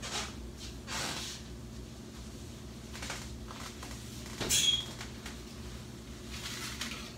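Oven door of an electric range being pulled open, with a sharp squeaky clunk about four and a half seconds in. Softer handling and rustling sounds come before it and near the end.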